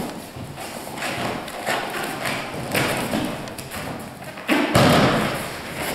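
Rustling of gi and hakama and bare feet moving on a dojo mat, then a loud thud about three-quarters of the way through as the uke is thrown with kotegaeshi and lands in a breakfall on the mat.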